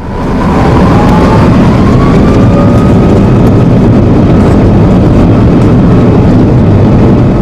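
Jet engine at intense full thrust: a loud, steady roar with a faint whine that rises slightly over the first two seconds.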